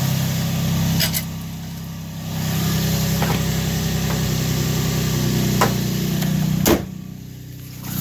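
2003 Infiniti G35's 3.5-litre V6 idling steadily, its newly fitted drive belts running fine. A few sharp clicks sound over it, and the engine sound drops twice for a second or so.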